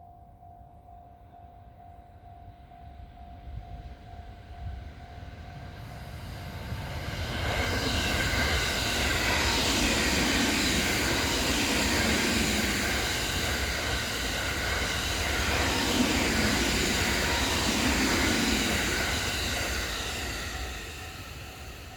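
A level-crossing warning bell rings steadily, then the Sunrise Seto/Izumo, a 285 series electric sleeper train, approaches and passes close by for about thirteen seconds with loud, pulsing rumble and rail noise that swamps the bell. The train noise fades near the end and the bell is heard again.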